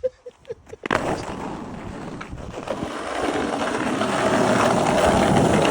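Skateboard wheels rolling on pavement: a steady rush that starts about a second in and grows louder as the board comes in for a grind on the curb.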